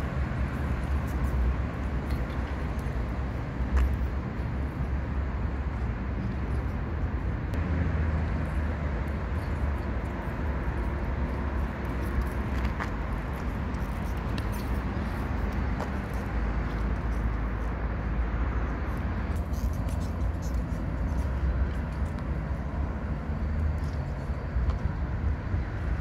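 Steady outdoor background noise with a low, wavering rumble and a few faint clicks.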